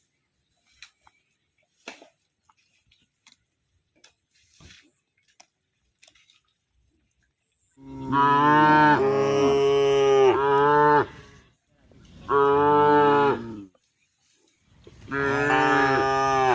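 A cow mooing three times in long, loud calls, starting about halfway in after a quiet stretch with a few faint clicks.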